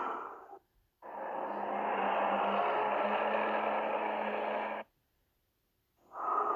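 Godzilla 2000 sound effect: a steady, even rushing noise with a low hum beneath it, lasting about four seconds and cutting off abruptly. The tail of the previous effect fades out at the start, and the next one begins near the end.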